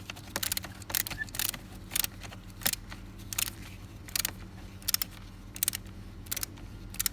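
Ratchet with an 11 mm socket loosening the nut on the car battery's negative terminal clamp: a short burst of ratchet clicks on each back-swing, repeating about every three-quarters of a second.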